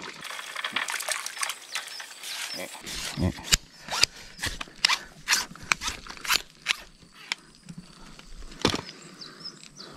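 Handling noise as a hooked climbing perch is lifted from a swamp on a long fishing pole and brought to hand. A quick run of sharp clicks and taps, about three a second, comes through the middle, with one more near the end.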